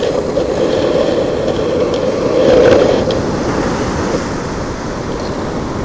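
Ocean surf washing, a steady rush that swells to its loudest about two and a half seconds in and then eases off.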